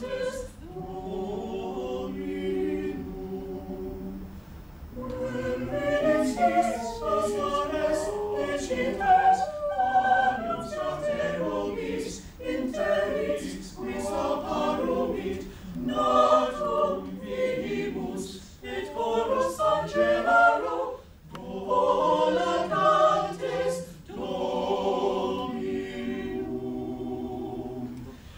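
Small mixed-voice chamber choir singing a cappella, in phrases with short breaks between them.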